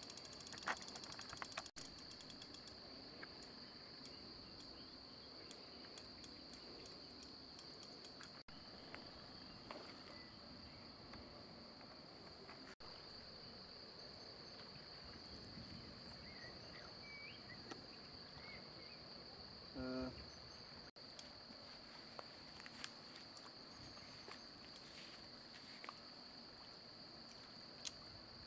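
Faint, steady high-pitched chirring of insects, with scattered light ticks and a brief pulsed low call about twenty seconds in.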